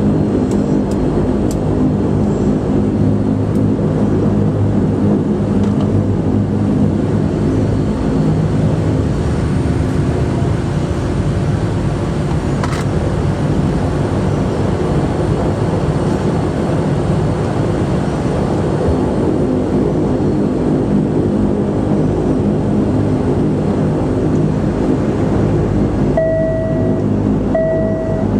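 Cabin noise of a de Havilland Canada Dash 8-100: its twin turboprop engines and propellers run at a steady, even drone, heard from inside the cabin. Near the end come two short, steady beeps.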